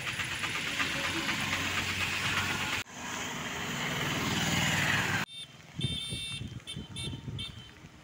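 Road traffic on a rain-wet road: vehicles going by with engine noise and tyre hiss, one growing louder as it approaches. The sound breaks off abruptly about three seconds in and again about five seconds in, after which a quieter background with a few thin high tones remains.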